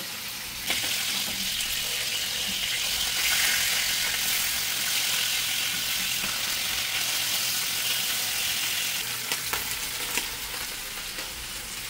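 Pieces of hilsa fish frying in hot oil, a steady sizzling hiss, with a couple of faint clicks near the end.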